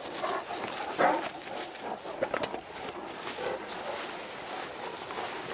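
Great Danes panting and padding through long grass right around the microphone, with uneven rustling and short clicks and a louder burst about a second in.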